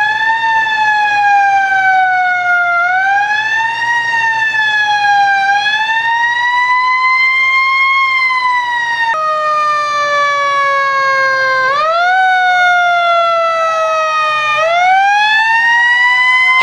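Fire truck sirens wailing, the pitch sinking slowly for a few seconds and then sweeping back up, again and again. In the second half a second siren overlaps, the two rising and falling out of step.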